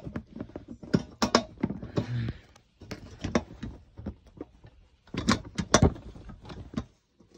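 Clicks and knocks of a ceiling light fixture's ring being handled and fitted onto the fixture, in uneven single taps with a tight cluster of sharp knocks about five to six seconds in.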